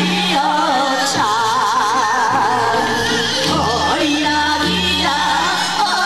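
Korean folk song (minyo) sung by a group, led by a woman singing into a microphone, her voice wavering with strong vibrato over accompaniment with sustained low notes.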